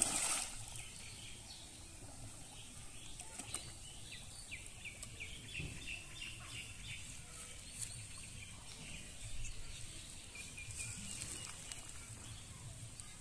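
A splash of water as a man drops waist-deep into a shallow pond, then small birds chirping in short runs of quick notes.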